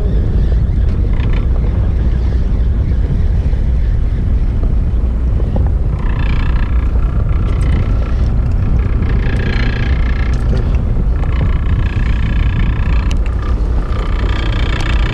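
Fishing boat's engine running with a steady low rumble, with patches of higher-pitched noise over it about six, nine and fourteen seconds in.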